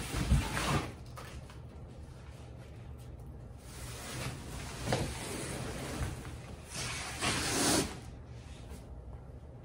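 Cardboard shipping box and sofa pieces being shifted by hand: a bump right at the start, then two longer stretches of scraping and rustling, one around the middle and one near the end.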